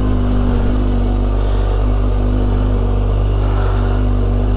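Kawasaki Ninja ZX-25R's inline-four engine running through a Yoshimura R-77 exhaust at a steady pitch, without revving.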